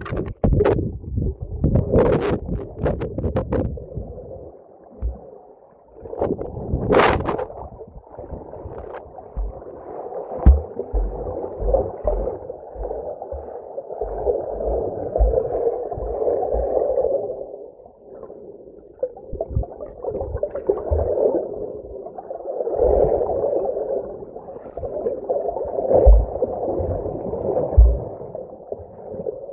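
Muffled underwater sound from a camera held below a lake's surface: water gurgling and rushing against the camera as it moves. There are a few sharp splashes in the first seconds and another about seven seconds in.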